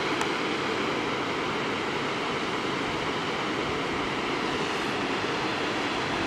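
Waterfall on the River Clyde, water cascading over stepped rock ledges into a pool: a steady, unbroken rush of falling water.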